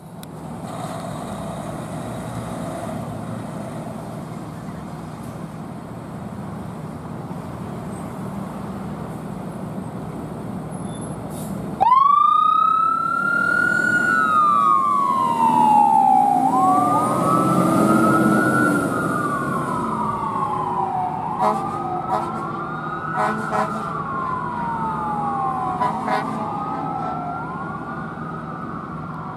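Fire engine's engine running steadily, then about halfway through its siren starts suddenly: repeated wails that rise quickly and fall slowly, overlapping one another, while the engine revs as the truck pulls away. A few short, sharp blasts cut in over the siren near the end.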